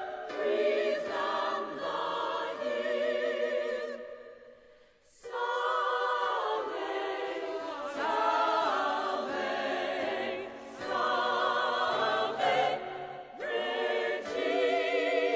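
Choir singing a slow sacred song, the voices held with vibrato. The singing stops briefly about five seconds in, then comes back in.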